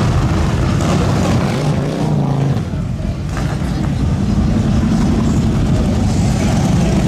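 Motorcycle engines running loudly, dipping briefly about two and a half seconds in and then building again.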